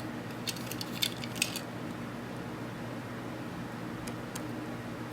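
A few light, sharp clicks and ticks from handling a small die-cast toy car, with a steady low hum underneath.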